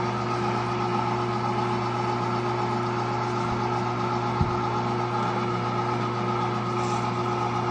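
Cabela's Carnivore #22 electric meat grinder running steadily under load, its motor giving an even hum as it grinds chicken giblets and pushes them out through the plate. There is one brief knock about halfway through.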